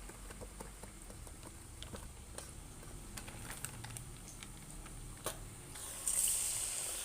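Light soft taps of fingers patting ragi vadai dough flat on an oiled plastic sheet. About six seconds in, a vadai goes into hot oil and starts frying with a loud, steady sizzle, the loudest sound here.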